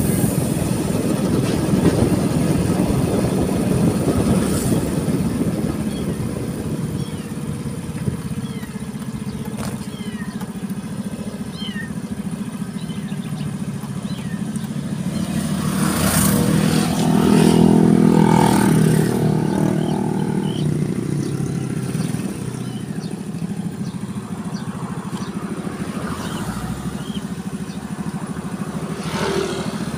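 Motorcycle engine running steadily while riding along a road, with road noise. It grows louder for a few seconds around the middle.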